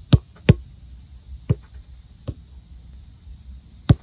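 Football being passed and trapped between two players: sharp thuds of foot striking the ball, a close pair near the start, then single ones about a second and a half in, a little after two seconds, and near the end.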